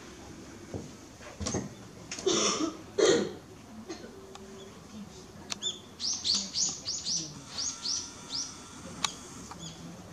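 A small bird chirping: about six seconds in, a quick run of about ten high chirps, each sliding down in pitch, with a few more near the end. Earlier, two or three seconds in, come two brief, louder bursts of noise.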